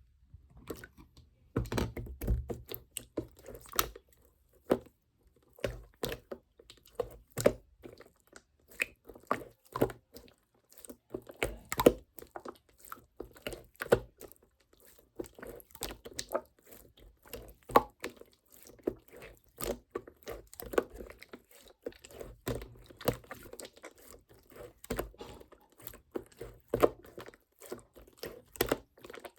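Slime being squeezed, pressed and stretched by hand, making a dense run of irregular crackles, clicks and soft squelches.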